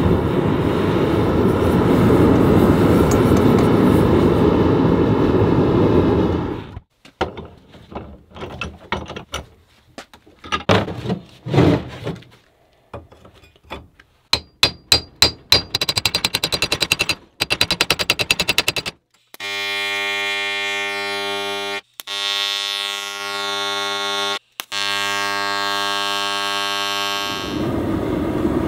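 Gas forge burner running with a steady rushing noise, then metal strikes on hot steel, scattered at first and then in a fast even run of about five a second. A steady machine hum with many overtones follows, cut twice briefly, before the forge burner noise comes back near the end.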